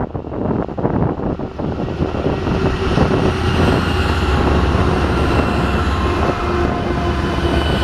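BNSF diesel locomotives at the head of a double-stack container train approaching and passing close by, their engines' low rumble growing louder about two seconds in and then holding steady as they go by.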